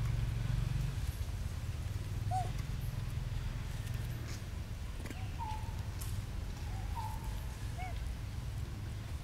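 A steady low rumble with four short, faint animal calls over it, each a brief rising-and-falling or level note.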